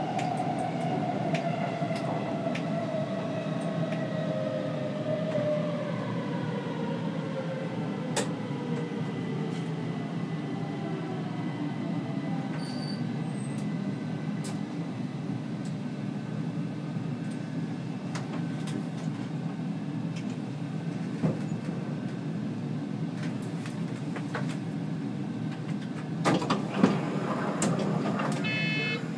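Stockholm C20 metro train running, heard from on board: a steady rumble of wheels on rail with scattered clicks. Over the first several seconds a motor whine falls in pitch as the train slows. A few louder clicks come near the end, followed by a brief electronic tone.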